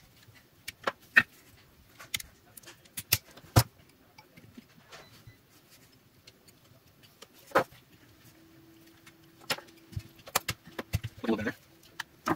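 Sharp clicks and light clinks of plastic housing, cells and hand tools as a lithium-ion battery pack is worked apart by hand. They come irregularly and bunch together near the end, as the block of 18650 cells is lifted from its case. A faint steady hum runs under the last few seconds.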